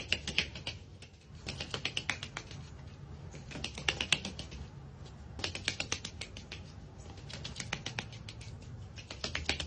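A white domestic duck moving about on a concrete porch, making quick runs of light clicks and taps, each run about a second long, with short pauses between them.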